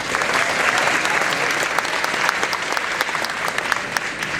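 Audience applauding: dense clapping from many hands, fading away just after the end.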